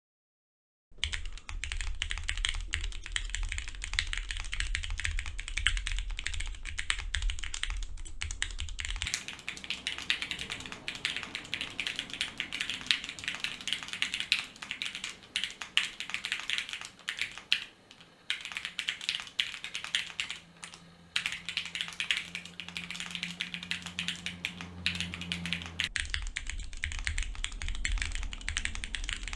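Fast continuous typing on a custom mechanical keyboard with Cherry MX Black linear switches on 55 g springs and XMI Wubi keycaps, starting about a second in after a brief silence.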